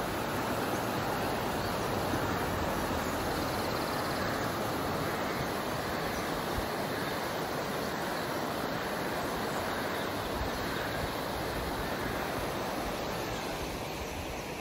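River water rushing steadily over stones, a constant even hiss that eases a little near the end.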